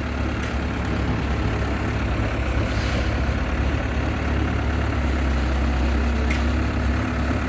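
Heavy diesel engine of construction machinery running steadily with a low drone.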